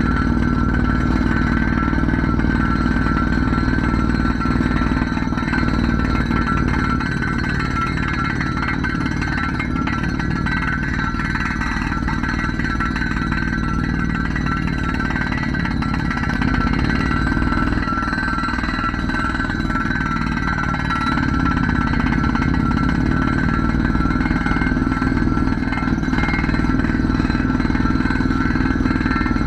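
Drilling machine running steadily, a continuous mechanical noise with a steady whine.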